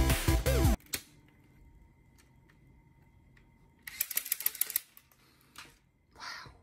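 Lego Technic MP5 toy gun firing on full auto: a rapid burst of sharp plastic clicks about four seconds in, lasting about a second, with a few softer single clicks before and after.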